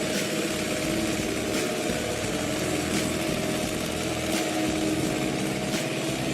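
Small tractor engine running steadily, with a sharp tick about every second and a half.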